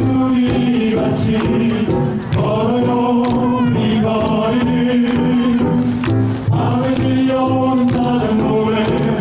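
A choir singing held notes in several parts over music with a regular percussive beat.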